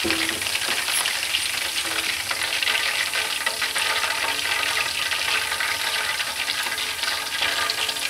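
Hot oil deep-frying chicken lollipops (marinated chicken drumettes), steady sizzling with a fine crackle, as the wire basket is lifted from the oil. The chicken is cooked golden brown and crispy.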